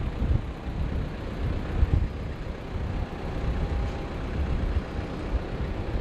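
Wind buffeting the microphone in uneven gusts, over the Airbus A320's jet engines running during its landing rollout. A thin steady whine from the engines comes in about halfway through.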